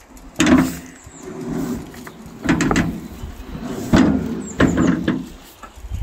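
Steel wheelbarrow being lowered after dumping soil and wheeled over wooden pallets: its empty tray and frame clank and rattle with short squeaks, loudly, four or five times.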